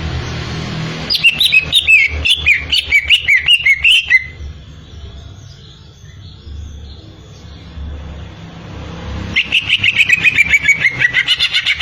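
Cucak ijo (greater green leafbird) singing: a rapid run of short, gliding whistled notes about a second in, then a quieter pause, then another fast chattering phrase starting near the end.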